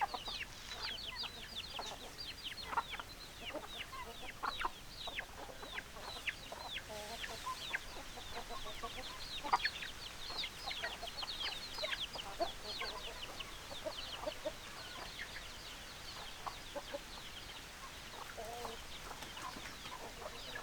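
Chickens calling: a dense stream of short, high, falling chirps, several a second, with a few lower clucks mixed in.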